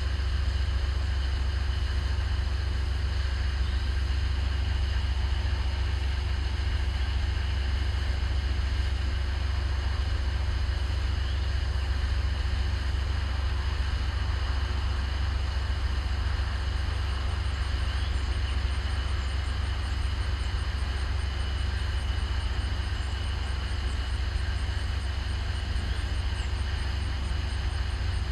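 Steady low rumble of a towboat's diesel engines running at low power as it eases a tow of barges into a river lock.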